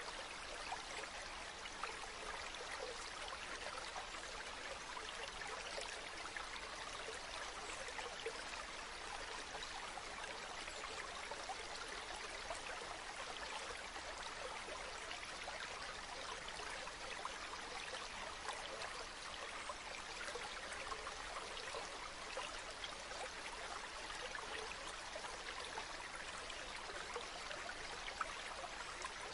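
Water from a bamboo fountain spout trickling and splashing steadily into a pool.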